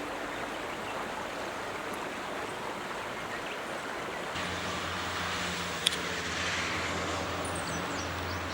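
Steady outdoor background hiss after the chime has ended, joined about halfway through by a low, steady engine hum. A single sharp click comes a little later.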